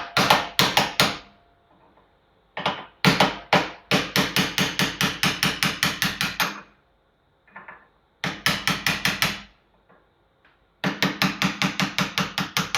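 Rapid hammer blows on a brass punch against the steel locking ring of a Yamaha TZR 250 rear shock, at about five a second in several runs with short pauses between. The blows are breaking the corrosion bond that glues the ring to the shock body's threads.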